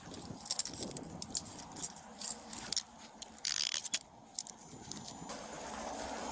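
Metal handcuffs clicking and jangling as they are put back on a detainee's wrists and ratcheted tighter, amid rustling and scuffling, with a louder scrape about three and a half seconds in.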